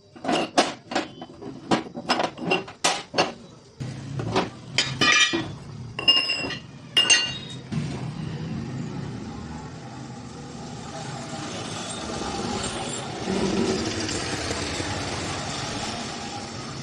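Pieces of steel knocked and set against each other: a quick series of sharp metallic clinks, some ringing briefly. About halfway through the clinks stop and give way to a steady noise.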